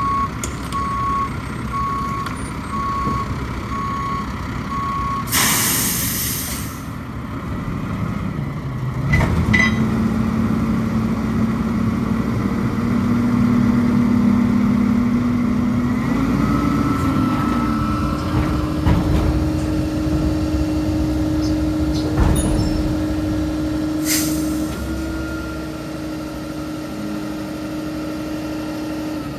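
Mack Granite roll-off truck's backup alarm beeping steadily, then stopping as the air brakes let out a loud hiss about five seconds in. The diesel engine then speeds up in steps and holds a higher, steady pitch, with short air hisses about nine seconds in and again near the end.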